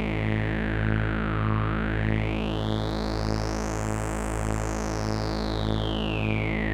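AnalogFX SER-2020 analog synthesizer holding a steady drone while a resonant filter sweeps slowly: the bright peak falls, rises high about four seconds in, then falls again near the end. A low tone pulses about twice a second underneath.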